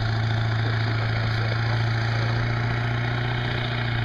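A vehicle engine running with a steady low hum: the tow vehicle hauling a keelboat on its trailer up the launch ramp.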